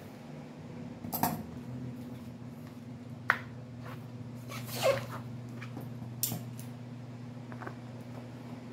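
Clear plastic shrink-wrap on a small cardboard box crinkling and rustling as it is handled, with a sharp click about three seconds in and a brief squeak falling in pitch just before the five-second mark. A steady low hum runs underneath.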